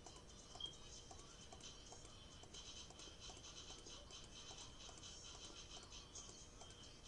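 Faint, quick computer mouse clicks, about three a second, over a soft hiss: zigzag points being clicked in one by one with a polygonal lasso tool.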